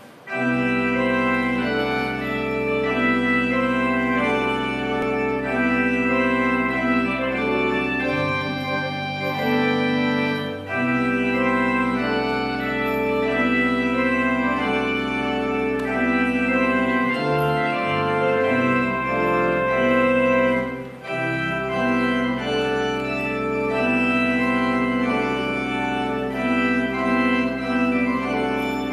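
Organ prelude opening a church service: slow, sustained chords over long-held low bass notes that change every few seconds.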